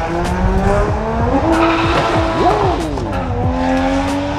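Ford Mustang Cobra's engine revving as the car pulls away, its pitch climbing in steps, dropping about three seconds in, then holding steady.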